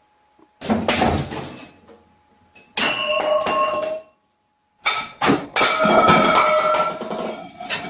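Three loud bursts of crashing, clattering noise with ringing tones running through them. The first comes about a second in, then there is a pause, and the last lasts a few seconds.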